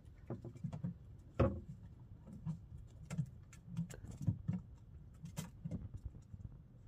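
Irregular knocks and thumps aboard a small fishing boat, the loudest about one and a half seconds in.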